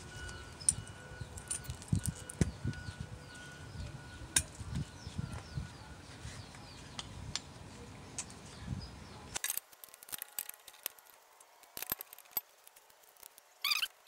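Faint, scattered clicks and small metallic clinks of a caliper bracket and its new brake hardware clips being handled and fitted. A short cluster of louder clatter comes near the end.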